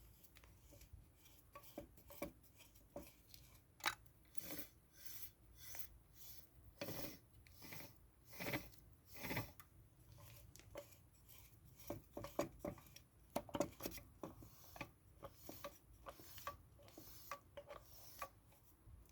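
Faint, irregular scraping, rubbing and light clicks of washing-machine parts being handled and fitted by hand.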